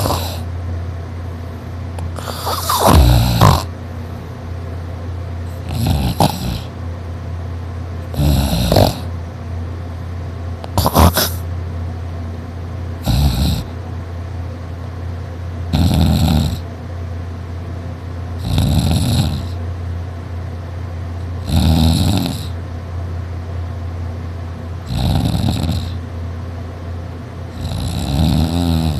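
A sleeping person snoring loudly, about ten snores at a steady pace of one every two and a half to three seconds.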